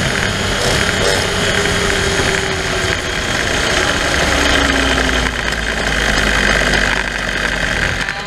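Moped's small two-stroke engine running under way, mixed with steady wind and road noise on the moving bike.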